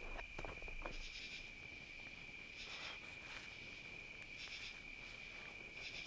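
Night insects: a steady high cricket trill, with short buzzy calls higher up about every one and a half to two seconds. A few crackles come from the campfire in the first second.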